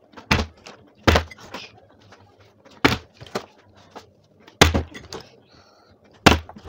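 A series of about six sharp knocks and thuds, spaced irregularly, with quiet in between.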